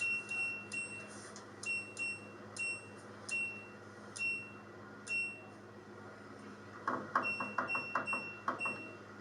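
LG washing machine's control panel beeping as its program dial is turned, one short high beep with a click per step. A run of steps comes first, then a short pause, then a quicker run of beeps and clicks near the end.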